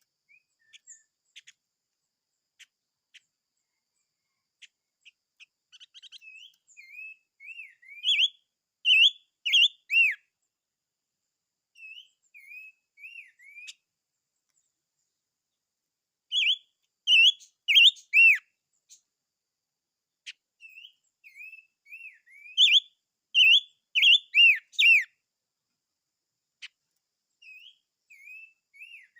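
A caged songbird, a 'ngũ sắc' (five-coloured bird), singing. Its phrases are quick runs of rising and falling whistled notes, separated by pauses of a few seconds. The phrases are loudest about a third of the way in, just past the middle, and at about three quarters.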